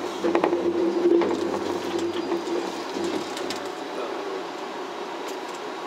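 Skyrail suspended car's running gear and drive, heard from inside the cabin as it rolls slowly into a station: a steady mechanical hum with clicks and rattles, the hum easing off about three and a half seconds in.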